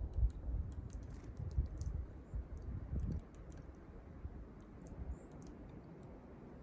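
Irregular light clicks and taps, several a second, over a low uneven rumble.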